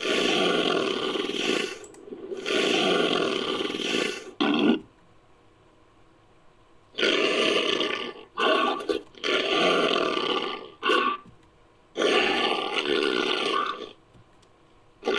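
Created Masiakasaurus dinosaur sound effects: a series of rough, noisy calls, five long ones of one and a half to two seconds each, with three short barks in between and a silent gap of about two seconds before the fourth call.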